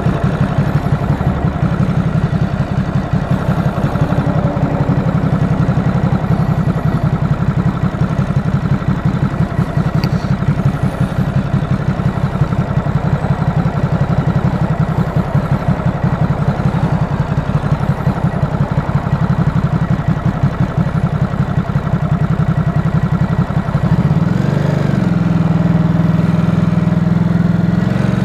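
Stock 2018 Ducati SuperSport S with its 937 cc L-twin engine running steadily at idle while warming up, with an even pulsing beat. About 24 seconds in the pitch briefly rises and falls, and the sound then runs a little louder and smoother.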